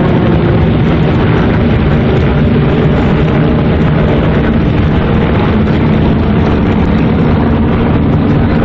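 Steady drone of many Van's RV light propeller planes flying overhead together in a mass formation, their engines and propellers blending into one continuous low drone.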